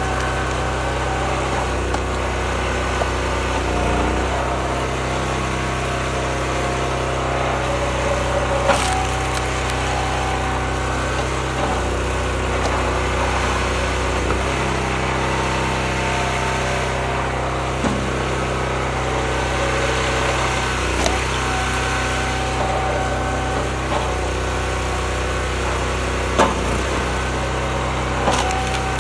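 Homemade hydraulic log splitter running steadily on its engine, its note shifting several times as the ram is worked, while oak rounds split on the wedge with a few sharp cracks, the loudest near the end.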